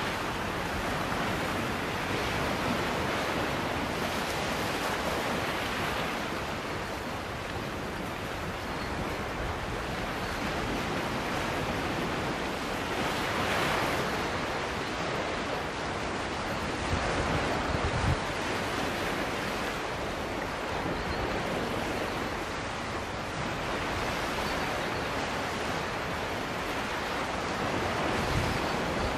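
Small sea waves washing and breaking against shoreline rocks, a steady surf wash that swells and eases every few seconds, with a stronger surge about halfway through. Brief low thumps come a little past halfway.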